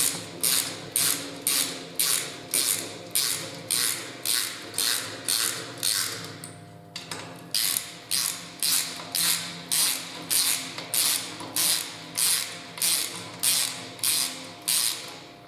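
Socket ratchet wrench clicking in steady strokes, about two a second, as it runs down the main bearing cap bolts on an engine block; the strokes break off briefly about seven seconds in, then resume.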